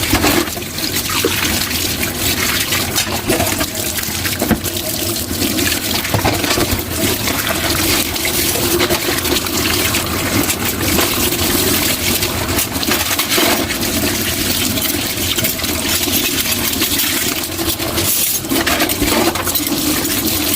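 Water running steadily from a kitchen tap into a sink, with scattered clinks and knocks of dishes being washed under it.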